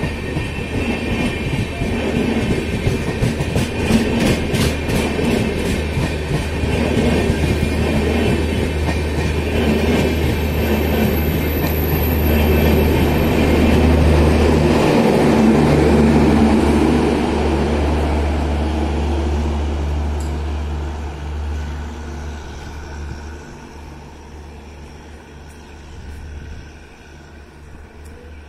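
LHB passenger coaches rolling past: a steady low rumble, with the wheels clacking over rail joints a few seconds in. The sound fades as the last coach passes, about two-thirds of the way through, and the train moves away.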